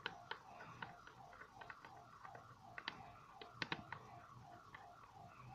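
Small, sharp, irregular clicks of metal parts being handled on a ladies' wristwatch movement held in a movement holder, a quick cluster of them about three and a half seconds in. Behind them runs a faint falling tone that repeats about four times a second.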